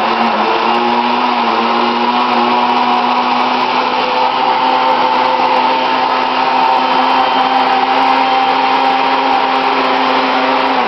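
Countertop blender motor running, blending frozen strawberries, crushed ice, milk and yogurt into a smoothie. A steady hum that rises slightly in pitch in the first second, holds steady, then drops in pitch as it switches off at the end.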